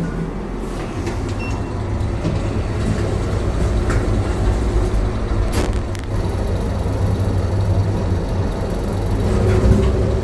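Steady low rumble of a running vehicle heard from inside it, with a faint click about five and a half seconds in.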